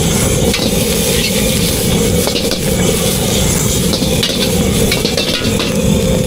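Food sizzling in a pan as it is stirred, with scattered clicks and scrapes of a utensil against the metal over a steady loud background.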